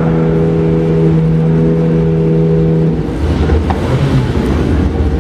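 Car engines in a circuit parade lap: one engine holds a steady note at constant revs, then about three seconds in it gives way to a lower, rougher engine rumble.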